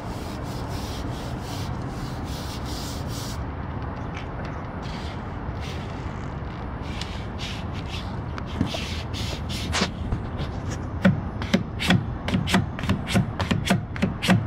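Self-adhered flashing tape being rubbed and pressed down by hand onto housewrap: scattered scratchy rustles at first, then, from about halfway, a quick run of short rasping strokes, about three a second.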